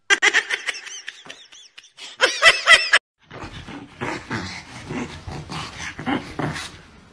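Rapid high chirping for the first three seconds. After a short break, a small dog, a chihuahua, growls in rough uneven bursts as it scuffles with a cat.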